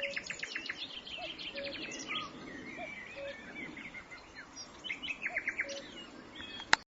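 Common nightingale singing rich phrases of rapid repeated notes, trills and whistles, while a common cuckoo calls its low two-note "cuck-oo" at intervals, three times. A single sharp click sounds just before the end.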